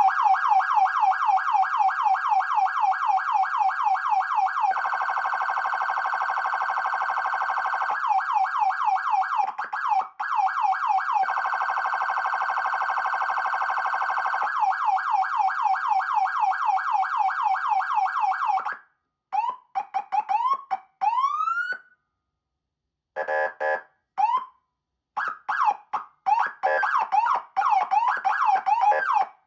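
Federal Signal MS4000U electronic siren cycling through its tones: a rapid sweeping yelp of about four to five sweeps a second, twice switched to a steady harsh horn-like buzz for about three seconds each. After about 19 seconds it changes to short rising whoops with pauses between them, then a choppy mix of quick sweeps.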